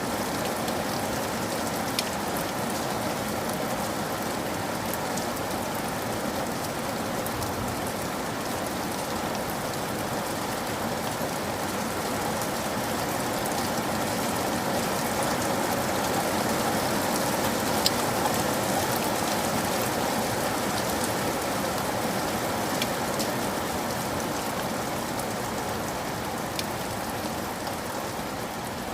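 Steady rain falling, with a few louder single drop hits standing out, the clearest about two seconds in and again about eighteen seconds in.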